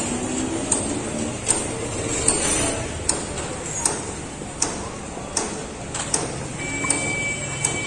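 Street ambience with faint distant voices, cut through by a sharp click that repeats evenly about every three-quarters of a second. A thin high steady tone joins near the end.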